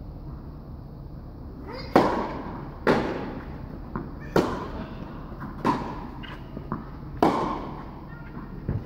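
Tennis rally: a ball struck back and forth with rackets and bouncing on the court, five loud, sharp pops with fainter knocks between them, each echoing in the large indoor hall.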